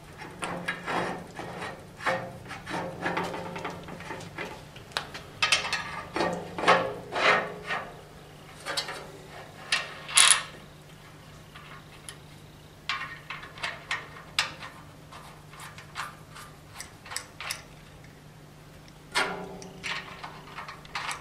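Steel parts of a 1940 Hercus lathe's saddle and apron being handled and fitted by hand: irregular clicks, taps and short scrapes of metal on metal, with a nut being run onto a threaded shaft end.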